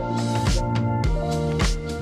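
Background music with a steady drum beat, funky guitar-driven backing track.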